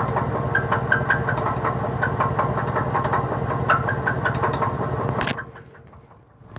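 2003 Cadillac DeVille engine running with a rapid, steady knock and short high-pitched squeaks over it, a fault the owner cannot name. About five seconds in there is a short rush and the running sound cuts off abruptly. A single sharp thump follows near the end.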